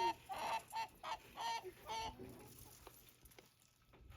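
Chicken calling: a held note, then about five short, quick calls over the first two seconds before it goes quiet.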